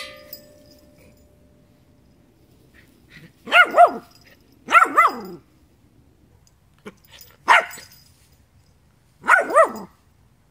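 Wheaten terrier puppy barking at a toy: seven short high-pitched barks, mostly in pairs, with pauses between the groups. They are a young puppy's newly discovered barks.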